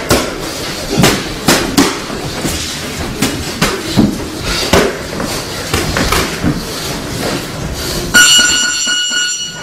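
Boxing gloves landing in irregular punches and short combinations during sparring. About eight seconds in, a gym round-timer buzzer sounds a steady, high electronic tone for about a second and a half, the signal that the round is over.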